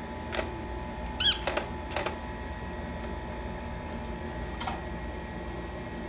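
Rose-ringed parakeet giving a quick run of short chirps about a second in, with a few sharp taps of its beak on a plastic bird-nest ornament.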